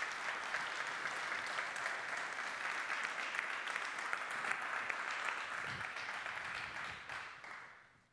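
Audience applauding steadily, a dense patter of many hands clapping that dies away over the last second or so.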